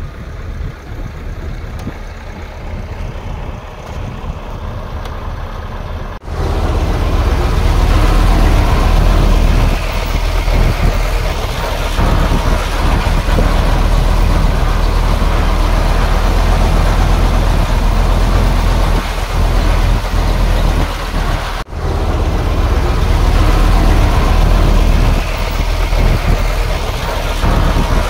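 Heavy diesel earthmoving machinery running, a low steady engine drone. About six seconds in the sound jumps suddenly to a much louder, closer engine, with a brief break about three-quarters of the way through.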